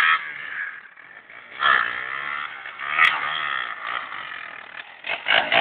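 Dirt bike engine revving in a few short bursts, its pitch rising and falling, quieter between revs.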